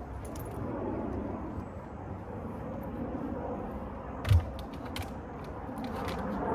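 Skid steer loader's engine running steadily as the machine drives forward, with one heavy clunk about four seconds in.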